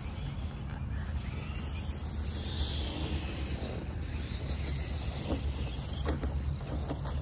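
Traxxas TRX4 Sport RC trucks' electric motors and geared drivetrains whirring as they drive over dry grass, louder for a couple of seconds from about two and a half seconds in, with a few light clicks later. A steady low rumble runs underneath.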